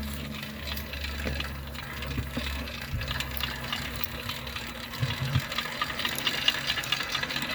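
80cc two-stroke motorized bicycle engine idling, a low steady hum that breaks up and turns uneven about three seconds in.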